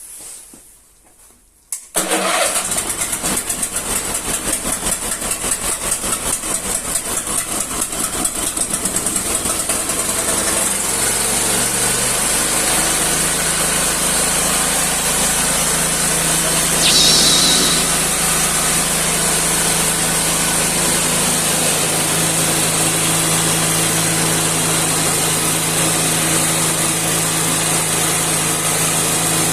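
Yamaha YSM870 snowblower's four-stroke engine starting about two seconds in, then running with a pulsing beat that evens out into a steady run, freshly filled with new oil. Its pitch steps up slightly about two-thirds of the way through, and there is a brief high-pitched sound about halfway through.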